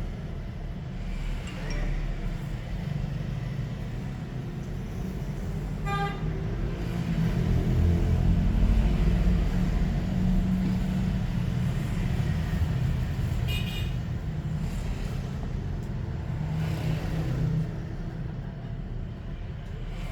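Road traffic passing with a steady low rumble that swells in the middle, and two short horn toots, one about 6 seconds in and a higher one about 13 seconds in.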